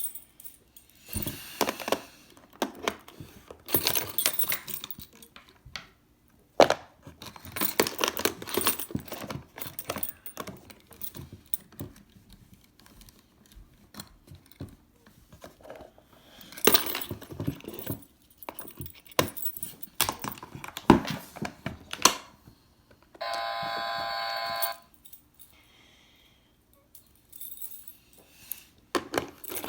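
Clicking and rattling of a wooden toy doorbell house as its keys, latches and doors are handled, in uneven clusters. About 23 seconds in, the toy's electronic doorbell sounds once, a steady tone lasting about a second and a half.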